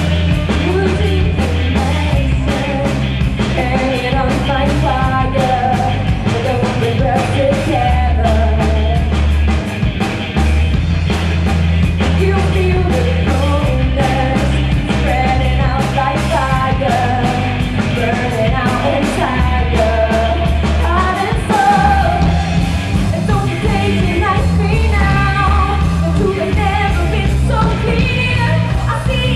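Rock band playing live: singing over electric guitars, bass guitar and a drum kit with a steady beat.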